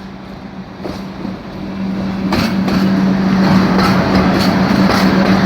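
Freight train hauled by a 2ES6 electric locomotive passing, growing louder, with a steady hum; from about two seconds in, the wheels start clacking over the rail joints in a run of repeated knocks.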